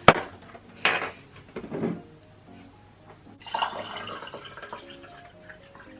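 A sharp click, then crinkling and rustling of small toy packaging being opened by hand, with soft background music underneath.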